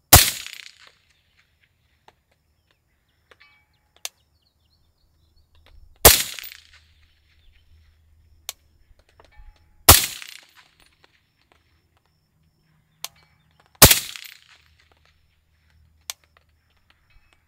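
Suppressed .308 PSA PA-10 semi-automatic rifle firing four slow aimed shots, about four seconds apart. Each is a sharp report with a short trailing echo. Faint single ticks come between the shots.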